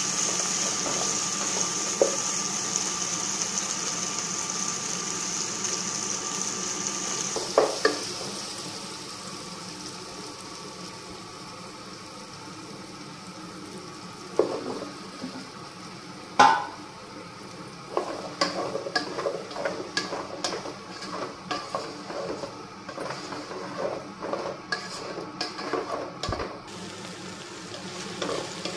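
Chopped tomatoes and onions sizzling in oil in a nonstick kadai while a wooden spatula stirs them; the sizzle is loud at first and fades about eight seconds in. Around halfway there are two sharp knocks as sliced okra is tipped in from a steel bowl, then the spatula stirs and scrapes the okra in quick, uneven strokes.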